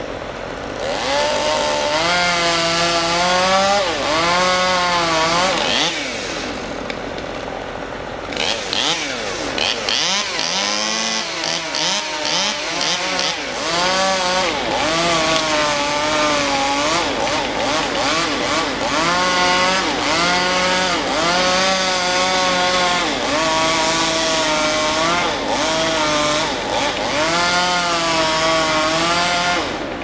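Two-stroke chainsaw cutting in the tree, revved in short runs with its pitch dipping under load and climbing back again and again. It eases off for a spell about six seconds in and picks up again around thirteen seconds.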